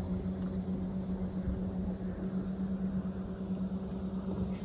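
Bow-mounted electric trolling motor humming steadily, with a low rumble of wind and water underneath.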